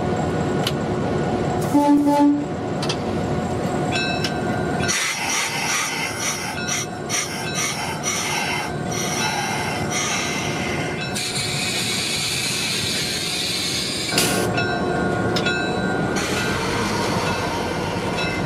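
Cab interior of an EMD GP9 diesel-electric locomotive: its 16-cylinder 567 diesel engine runs steadily, and a short horn blast sounds about two seconds in. Clanks and clicks follow, then a few seconds of air hiss.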